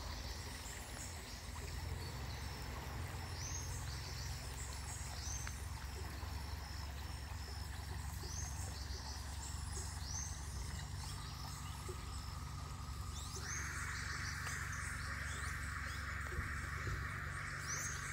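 Outdoor ambience with a bird calling over and over in short, high, rising chirps, over a steady low rumble. In the last few seconds a steady high hiss comes in and grows louder.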